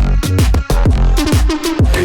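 Background electronic music with a heavy, pitch-dropping bass line and a steady beat.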